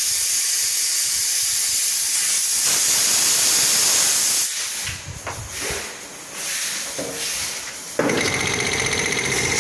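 Compressed air hissing out of an air compressor's receiver tank as its pressure drops, stopping about four and a half seconds in. Near the end the belt-driven compressor starts automatically, its pressure switch cutting in at low tank pressure, and runs with a steady fast rhythm.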